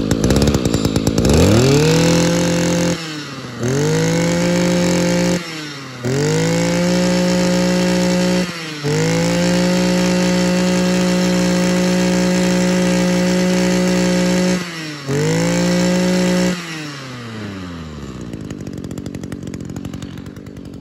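Echo Kioritz SRE2655G brush cutter's 26cc two-stroke engine revved from idle to full throttle five times, the longest hold about six seconds, with quick drops between revs. It then winds back down to idle near the end. It runs cleanly, with a sound the seller calls exactly right for a healthy engine.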